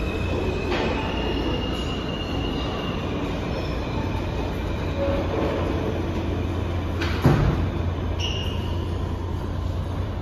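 R160 subway train standing at the platform with a steady low hum from its equipment and high squealing tones in the first few seconds. About seven seconds in, its doors close with a loud thud.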